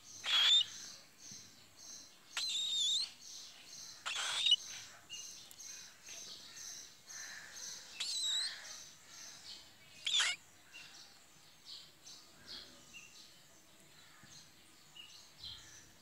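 Cockatiels calling: about five loud whistled calls that bend up and down in pitch, spread over the first ten seconds, over a faint, rapid run of short, evenly spaced high chirps.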